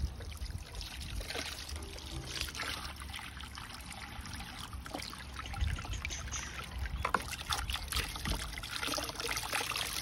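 Water from a garden hose pouring and splashing over a thick coat of ice on an air conditioner's copper suction line and compressor, thawing out the frozen-up unit.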